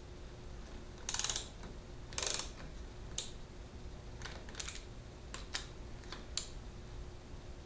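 Ratchet wrench clicking on a bolt on the Farmall Cub engine's cylinder head: two quick runs of clicks in the first few seconds as the handle is swung back, then scattered single clicks.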